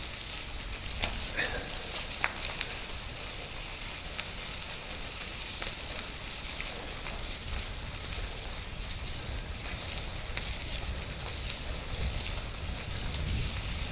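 Bicycle tyres rolling over a gravel trail: a steady crackling hiss with scattered small ticks from grit, and a low wind rumble on the microphone.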